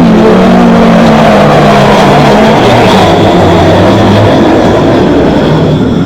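Sound-effect monster roar: one long, loud, rough bellow with a low pitch that sinks slowly, dying down near the end.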